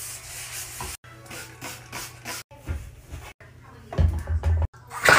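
Scrub brush rubbing on a bathtub surface in quick, even back-and-forth strokes, broken into short snippets. About four seconds in come a few loud, low knocks of handling at the tub's edge.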